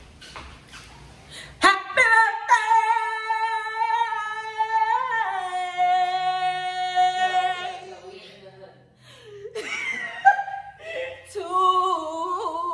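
A woman singing unaccompanied in long held notes, dropping to a lower held note about halfway through. After a short break she sings again near the end.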